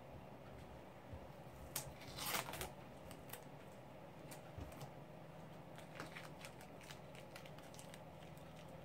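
Masking tape being peeled off a mandolin's headstock and crumpled in the hands: faint crinkling and tearing with scattered small clicks, the loudest a short rustle about two seconds in.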